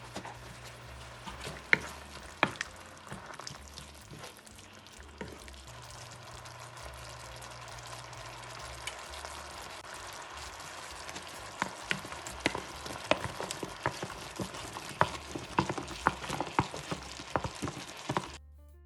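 Food sizzling in a frying pan while it is stirred, with a utensil clicking and scraping against the pan. The taps come thicker in the second half, and the sound cuts off suddenly near the end.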